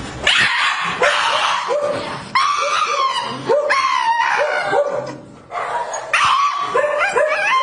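A Shiba Inu in a cone collar letting out a series of long, wavering, high-pitched cries, four in a row, with a brief break about five seconds in.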